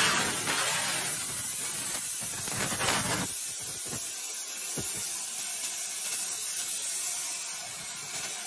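AG60 plasma cutting torch hissing steadily as its arc cuts through 12 mm (1/2 inch) steel plate. About three seconds in, the lower, rougher part of the sound drops away and a lighter, even hiss carries on.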